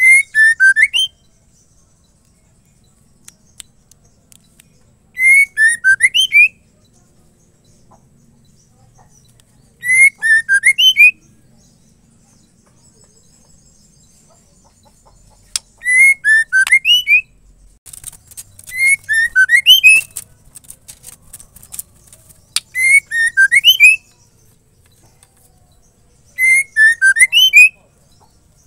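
A female white-rumped shama calling: a short phrase of quick whistled notes sliding up and down, repeated about every four to five seconds, seven times in all. A cluster of sharp clicks falls among the calls a little past the middle.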